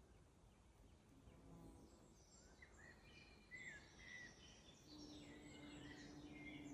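Several small forest songbirds singing and chirping, faint and overlapping. From about five seconds in, a steady low buzz joins them, a fly hovering near the microphone.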